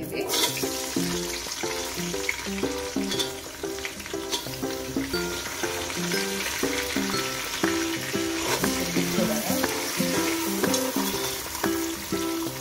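Sliced onions sizzling as they are tipped into hot oil and butter in a metal pot, the sizzle starting suddenly as they go in, with a metal ladle clicking against the pot while stirring. Background music plays throughout.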